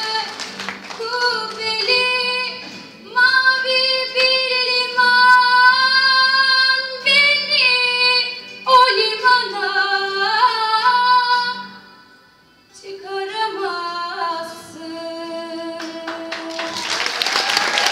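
A girl singing solo through a microphone, holding long, sliding notes over acoustic guitar accompaniment, with a short break about twelve seconds in. Applause starts just before the end as the song finishes.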